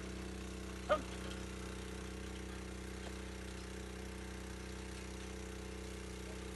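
Small engine running at a steady speed. One brief sharp sound stands out about a second in.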